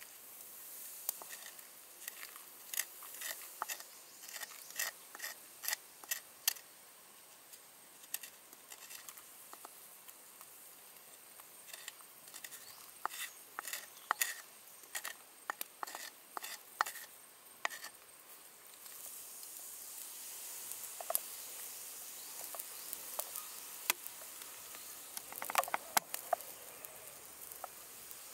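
A bamboo stick scraping and tapping against an earthenware dish as chopped lemongrass, chilli and herbs are pushed off it into a clay pot of beer, in a run of sharp clicks and scrapes. About two-thirds of the way through, a steady hiss joins in while the pot is stirred.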